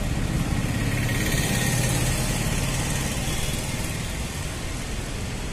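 A motor vehicle's engine idling steadily, a constant low hum.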